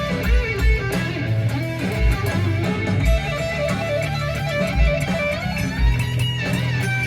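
Background music: an electric-guitar-led track with a bass line and a steady beat.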